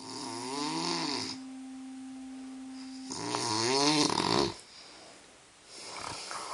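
A person snoring: two long, loud snores whose pitch rises and then falls, with a steady whistle-like tone held between them and a fainter breath near the end.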